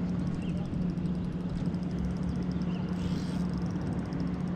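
Steady low hum of a boat motor running, with the fast, even ticking of a spinning reel being cranked as a fish is reeled in.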